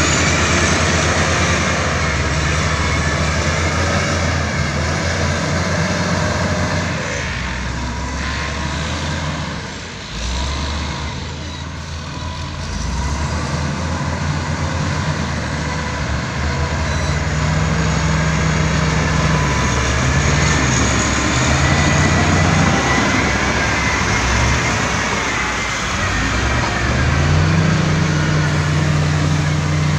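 Heavy diesel engines of a wheel loader and bulldozer spreading material, running under load. The engine pitch rises and falls several times as the throttle changes, and the level dips briefly about ten seconds in.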